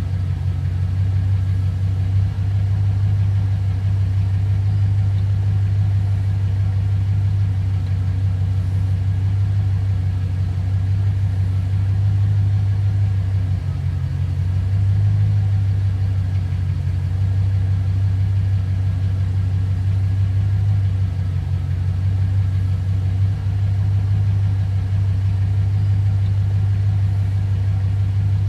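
V8 car engine idling steadily with a deep, even rumble.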